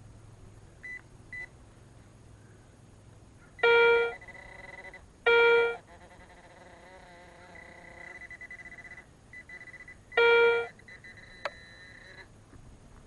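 Metal detector sounding on a buried target: three loud electronic beeps of about half a second each, with fainter, higher steady tones in between and a short click near the end.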